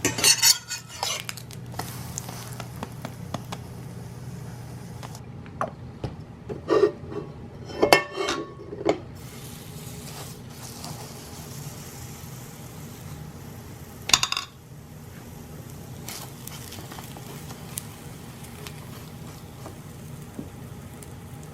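Kitchen clatter of utensils against pans and dishes: a handful of sharp knocks and clinks, with a cluster of them around the middle and one more a little later, over a low steady hum.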